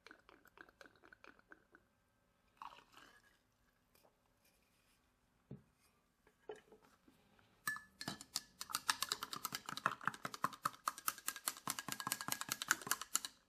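Whisking the red gelatin, grenadine and vodka mixture in a bowl: faint stirring at first and a few knocks against the bowl, then about eight seconds in a fast, steady clicking of the utensil against the bowl's sides that goes on to the end.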